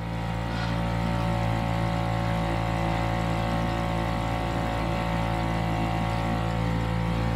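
Small outboard motor on an inflatable boat running steadily underway, its pitch holding even.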